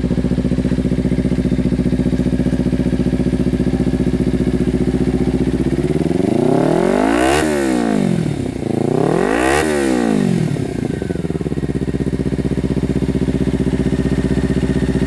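Kawasaki Ninja 300's parallel-twin engine breathing through a DG Performance V2 slip-on exhaust, idling steadily. It is blipped twice in the middle, each rev rising and falling quickly, then settles back to idle.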